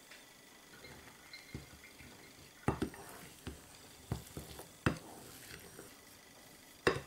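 White plastic spatula stirring and scraping a crumbly flour, nut-flour, sugar and melted-butter dough in a ceramic bowl, with several sharp knocks of the spatula against the bowl, the loudest about three seconds in and near the end.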